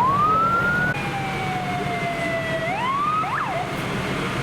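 Emergency vehicle's electronic siren sounding in short manual bursts. One rising sweep cuts off about a second in; a second tone falls slowly, sweeps up and ends with a quick up-and-down whoop before stopping. A steady low vehicle rumble runs underneath.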